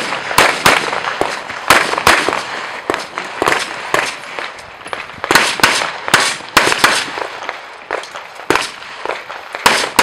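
Rapid handgun fire from a practical-shooting stage: about twenty sharp shots, many fired as quick pairs a fraction of a second apart, with brief pauses between strings as the shooter moves between targets.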